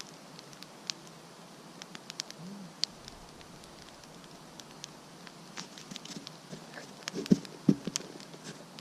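Wood campfire crackling with irregular sharp pops while light rain begins to patter. A couple of louder knocks come near the end.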